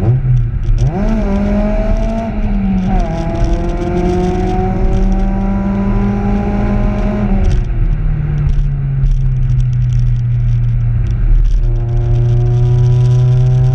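Honda CRX's D16A9 1.6-litre twin-cam four-cylinder engine, heard from inside the cabin, pulling under acceleration with its pitch climbing and a brief dip about three seconds in. About seven and a half seconds in it falls back to a lower steady note, then starts climbing again near the end.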